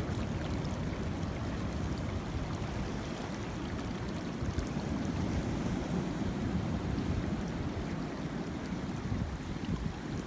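Ocean waves breaking and washing over shoreline rocks: a steady, continuous rush of surf.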